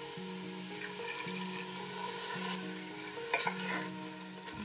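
Diced bacon lardons frying in a steel pot, a steady sizzle, stirred with a wooden spatula, with a few scrapes and knocks about three seconds in.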